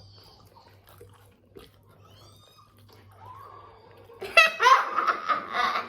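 A young child's loud, high-pitched vocalising, squealing with pitch bending up and down, starting about four seconds in and lasting about a second and a half. Before it there is only a faint low hum.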